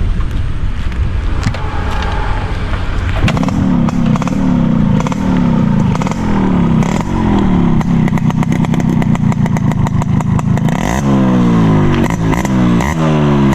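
Yamaha RX135 5-speed's two-stroke single-cylinder engine catching about three seconds in and running with an uneven, wavering note, breathing through its original steel silencer with the catalytic converter removed. Near the end it is revved in a quick series of sharp throttle blips, each falling back.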